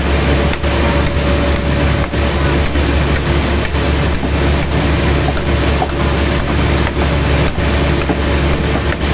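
Sawmill machinery running loud and steady, a low engine-like hum under a dense noise with frequent short knocks.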